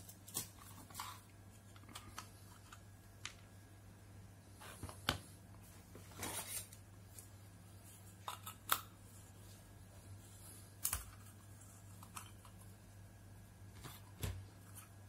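Faint, irregular clicks and short scrapes of a metal tool prying at the metal screw base of an LED bulb to remove its centre contact, over a low steady hum.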